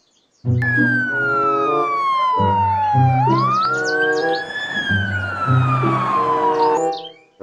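Police siren wailing: one slow fall in pitch, a rise back up about three seconds in, then another slow fall, cutting off near the end. A music track with a steady beat plays underneath.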